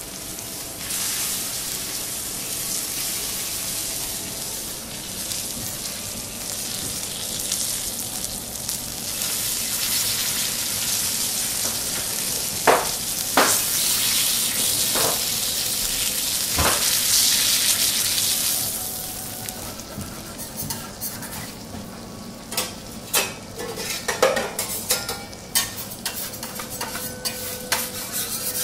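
Beef steak sizzling as it sears on a steel teppanyaki griddle, with a few sharp metal clicks as the spatula and fork turn it. About two-thirds of the way in the sizzle dies down and is followed by a run of short clicks and taps of the spatula on the griddle.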